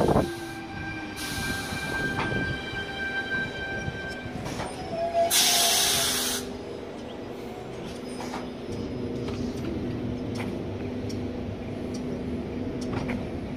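Sydney Trains C-set electric train at the platform: a whine dies away over the first few seconds, a loud air hiss lasting about a second comes about five seconds in, and then a steady low hum with scattered clicks.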